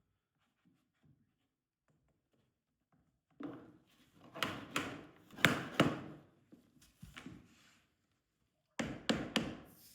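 A luxury vinyl plank being handled and cut: a run of short knocks and rasping strokes after a few seconds of quiet, then a second brief cluster near the end.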